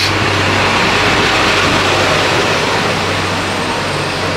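Single-car diesel railcar idling at a station platform: a steady low engine hum under an even hiss.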